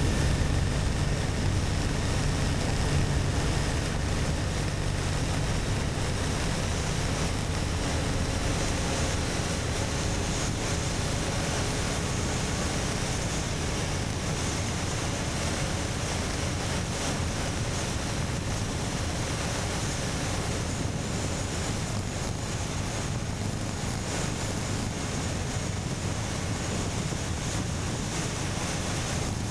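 Steady wind rush on an action camera's microphone while riding a motorcycle, with the engine's low hum underneath, stronger in the first few seconds.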